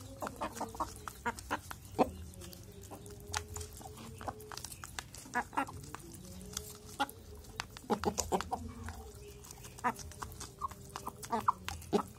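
Several chickens pecking feed from a plastic cup held in the hand: quick, irregular clicks of beaks striking the cup, with soft, drawn-out chicken calls in between.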